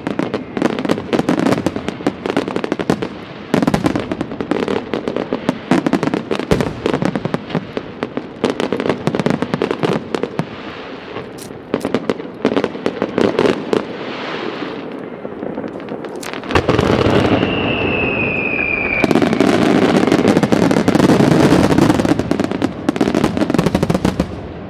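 Aerial fireworks going off in a rapid barrage: dense crackling and bangs, building about two-thirds of the way in to a continuous loud rush with a falling whistle, then stopping near the end.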